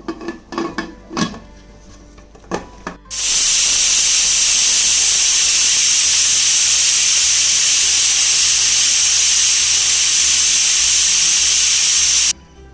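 A few metal clatters of pot and lid, then, about three seconds in, the pressure cooker's whistle: a loud, steady jet of hissing steam that lasts about nine seconds and cuts off suddenly. The whistle signals that the cooker is at full pressure; one whistle is all this biryani rice needs.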